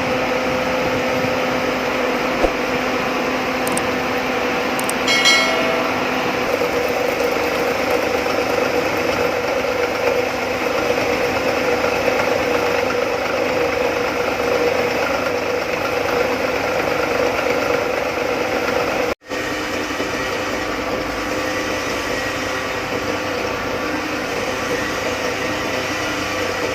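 A metalworking machine runs steadily with a constant hum and tone. A brief high squeal comes about five seconds in, and the sound cuts out for an instant about nineteen seconds in.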